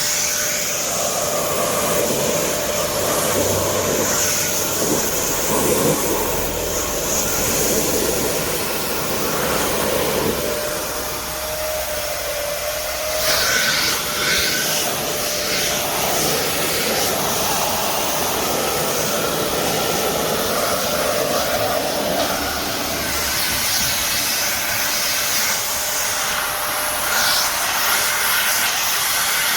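Samsung SC4130 1400 W canister vacuum cleaner running steadily: a motor whine over rushing air, its tone shifting about twelve seconds in.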